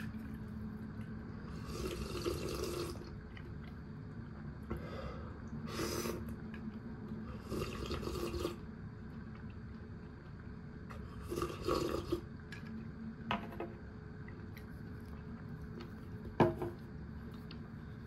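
Miso soup being poured into a bowl in about four short pours of a second or so each, followed near the end by a sharp knock, the loudest sound.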